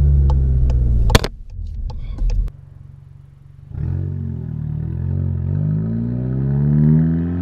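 Volkswagen Golf GTI Mk7's turbocharged 2.0-litre four-cylinder heard through a Remus sport cat-back exhaust and APR catted downpipe. A steady low exhaust drone is broken by a sharp knock about a second in and falls to a quiet idle. From about four seconds in the exhaust note rises again as the car pulls away.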